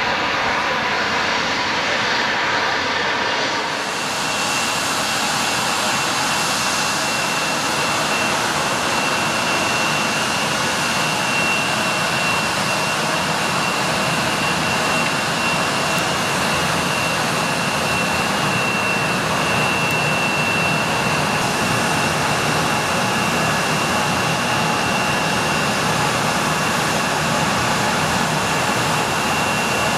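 Embraer 175's twin GE CF34-8E turbofan engines running while the jet taxis: a steady engine rumble with a high whine over it. The sound changes suddenly about four seconds in, and the whine then holds steady.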